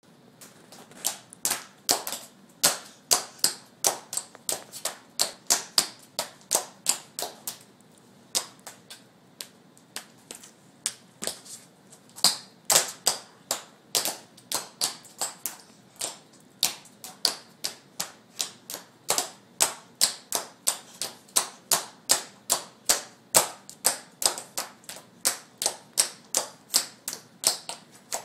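Tap shoes clicking sharply on a hard bare floor, in uneven runs of several taps a second, with a lull of a few seconds about a third of the way through.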